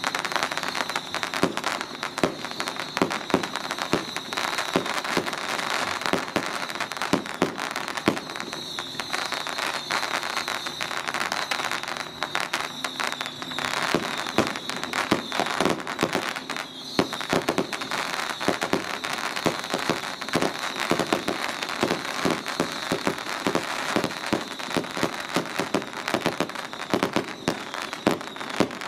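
Strings of firecrackers going off continuously: a dense, unbroken run of rapid pops.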